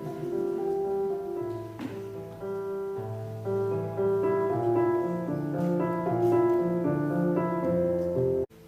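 Piano music: held chords and a melody over a bass line, cutting off abruptly near the end.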